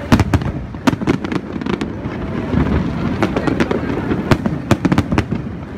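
Aerial fireworks shells bursting: a dozen or so sharp bangs and crackles at irregular intervals over a continuous low rumble, with the loudest bangs right at the start and about four seconds in.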